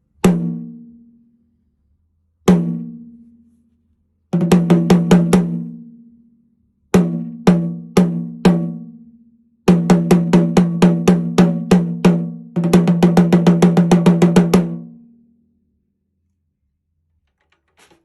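A 13 x 5.5 inch Caucasian maple stave drum, struck with sticks and unprocessed: two single hits, a quick run of about eight strokes, four evenly spaced hits, then two longer fast runs. Each stroke leaves a clear, low pitched ring that dies away slowly.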